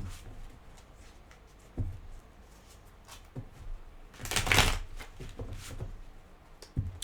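Tarot cards being handled and shuffled: a few light taps, then one main rustling shuffle about four and a half seconds in.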